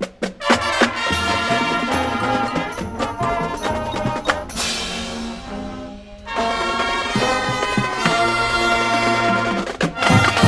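High school marching band playing: full brass chords over drums. A crash rings off about four and a half seconds in, the sound drops briefly around six seconds, then the brass comes back in and builds to loud hits near the end.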